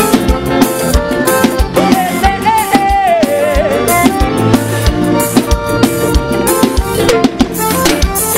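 Live band playing an upbeat instrumental passage: a drum kit keeps a steady kick-drum beat under accordion, keyboard and electric guitar, with a gliding melody line about two seconds in.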